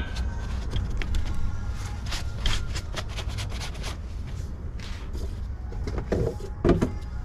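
Scattered light clicks and knocks of gloved hands handling parts and rags around a removed manual gearbox, with a louder knock near the end, over a steady low rumble.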